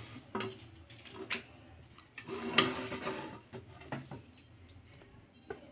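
A long metal ladle scraping and knocking against a steel kadai as thick cooked chicken masala is turned and lifted, in a few separate clinks and scrapes.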